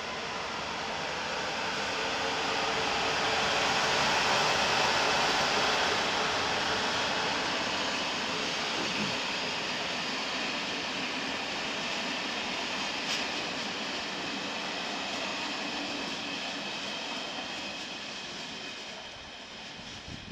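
Electric locomotive hauling passenger coaches past at speed: a steady rush of wheels on rail that swells to its loudest a few seconds in, then fades slowly as the coaches pull away.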